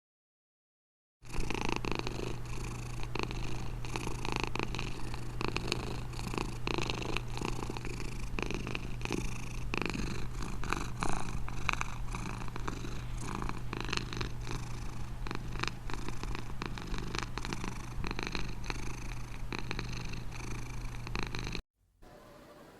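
A domestic cat purring steadily. It starts about a second in and stops abruptly about a second before the end.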